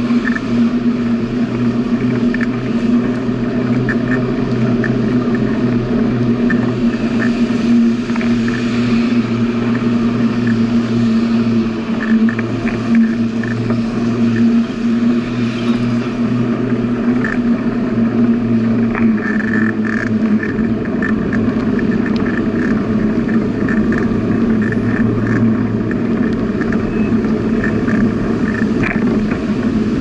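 Steady droning hum and rumble of a bicycle being ridden along a paved path, with scattered light ticks.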